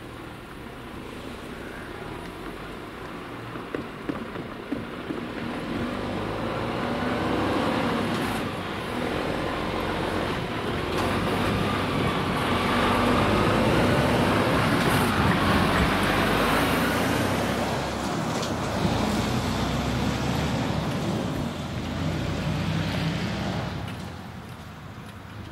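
Mercedes-Benz semi-trailer truck driving up and over a railway level crossing close by. Its diesel engine and tyres grow louder as it approaches, the engine pitch rises as it pulls across, and the sound fades near the end.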